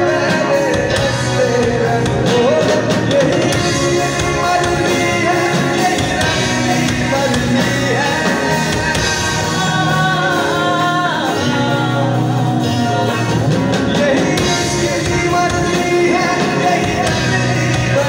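Live band playing a song through a PA, with a man singing lead over keyboard, guitars and drums.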